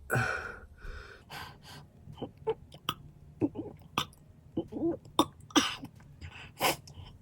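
A man burping over and over, with throat-clearing and coughing sounds: a loud breathy burp at the start, then a dozen or so short throaty noises in quick succession.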